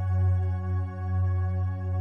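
Ambient background music: sustained, held tones over a low drone that swells and eases gently about once a second.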